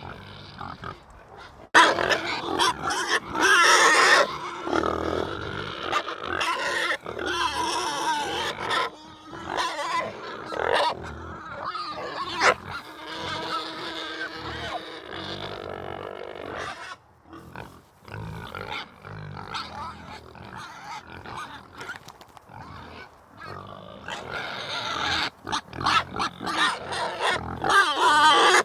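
Animal calls, coming and going irregularly, starting abruptly about two seconds in.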